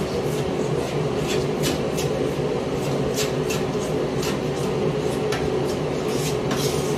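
A hand scraper scraping loosened old finish off a bathtub in short, irregular strokes, over a loud, steady mechanical hum.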